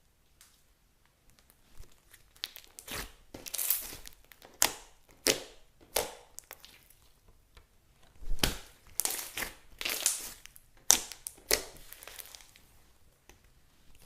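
Old slime being mixed and kneaded by hand, making irregular squishing and crackling sounds. It is nearly quiet for the first two seconds before the kneading starts.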